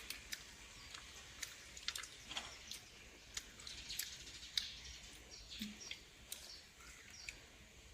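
Faint, scattered clicks and short slurping squeaks: sea snail shells being handled and sucked at to draw out the meat.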